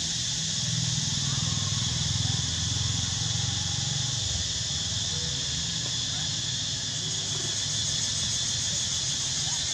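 Steady chorus of insects, a constant high drone, over a low steady rumble, with a few faint short chirps.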